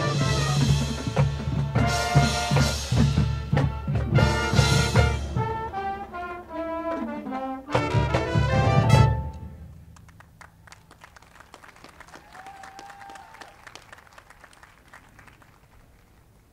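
Marching band playing loudly: brass over drums with a heavy low pulse, a falling brass line, then a big swelling hit about nine seconds in, after which the music drops suddenly to a much quieter passage with faint taps.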